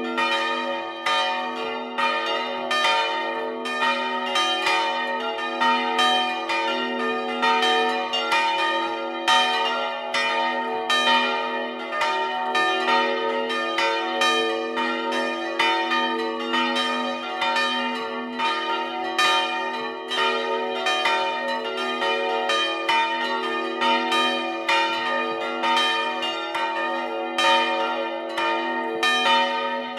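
Several swinging church bells ringing together in a full peal. The strokes overlap in an irregular, unbroken pattern, about two to three a second, each one ringing on over the others. The bells come from a four-bell set tuned B♭, E♭, F and B.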